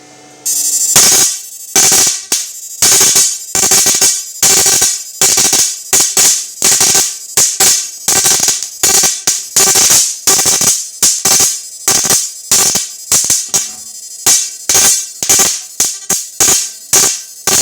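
Loud, buzzing electric arcing from the output of a homemade 28,000 W IGBT inverter shock-fishing machine, in sharp crackling bursts about two a second. It begins about half a second in.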